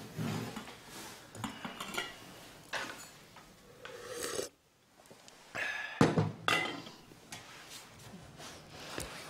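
Clinks of a white lidded tea mug and porcelain teacups being handled, and a person drinking tea from the mug. The two sharpest clinks come about six seconds in.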